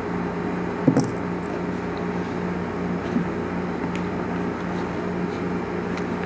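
A steady mechanical hum, like indoor room tone from ventilation, holding one low tone with a slight pulse. A few faint light clicks and taps sound over it, one about a second in.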